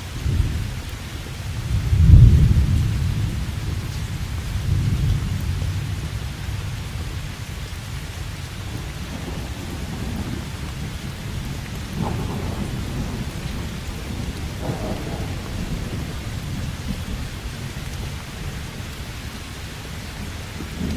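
Steady rain with thunder: a low rumble swells about two seconds in, then fades away slowly over several seconds, with lighter rolls of thunder later on.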